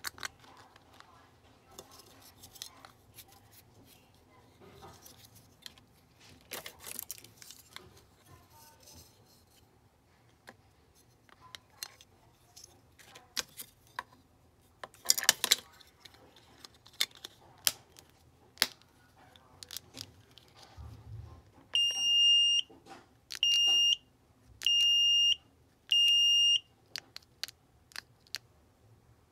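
Plastic key fob case being handled and snapped together: scattered clicks and light rattles, a few of them sharper. Near the end, four high, steady beeps of under a second each, about a second apart, from a handheld key-fob tester picking up the remote's transmission.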